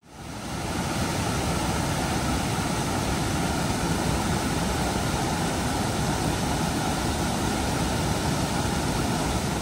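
Mountain creek rushing over rocks: a steady, full rush of whitewater that fades in over the first second.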